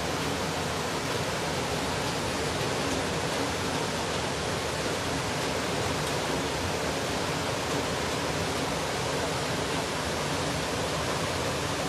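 Steady, even rushing of water, unbroken throughout, from a flood-swollen landscape.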